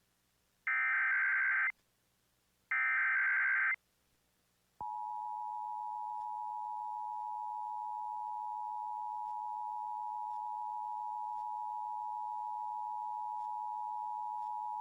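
Emergency Alert System header: the last two of three harsh digital data bursts, each about a second long and a second apart. After a short gap, the steady two-tone EAS attention signal starts about five seconds in and holds, announcing a tsunami-warning test message.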